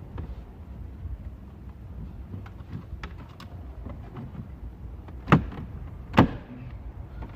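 Handling noise of work inside a car: rustling and small clicks over a low rumble, with two sharp knocks about five and six seconds in.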